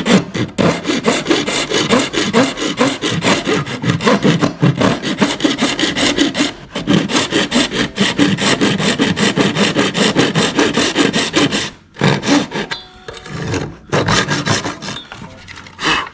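Rapid back-and-forth strokes of a hand tool abrading the plastic of a battery adapter, shaving it down so it fits the tool; the scraping pauses briefly twice near the end.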